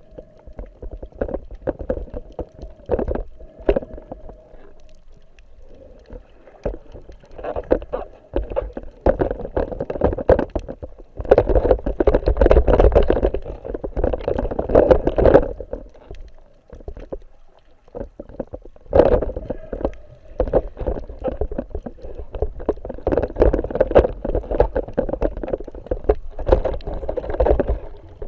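Muffled water sloshing and gurgling with irregular knocks, heard through an action camera's waterproof housing while freediving. The surges swell louder about eleven seconds in, drop away briefly around seventeen seconds, then pick up again.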